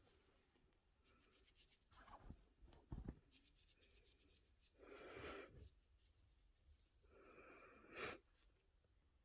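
Faint scratching and rubbing on a surface, with scattered light clicks and two short, louder rustles about five and eight seconds in.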